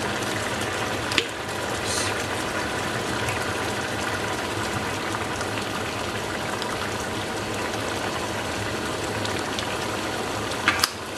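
Mutton bubbling and sizzling steadily in a pot of oil and leftover cooking liquid as the water cooks off, with a couple of short knocks, one about a second in and one near the end.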